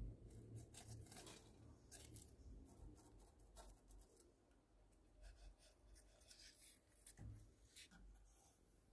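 Near silence with faint, scattered scratching and rustling, likely a hamster moving about in its enclosure among hay, bark and bedding.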